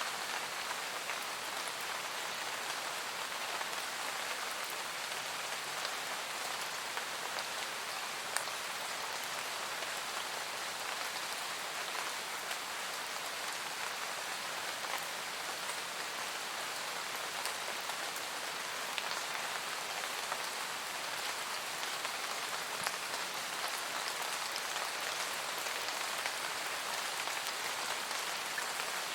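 Steady, calm rain falling, an even hiss with scattered individual drop ticks.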